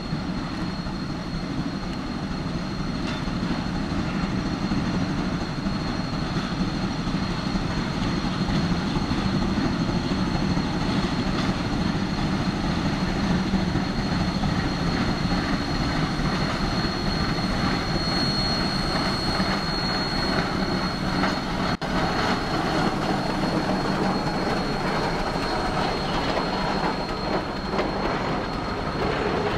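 Geared steam locomotive hauling a passenger train of open cars past at low speed: steady working exhaust and the rumble of wheels on rail, growing louder over the first several seconds as it nears, then the cars rolling by close.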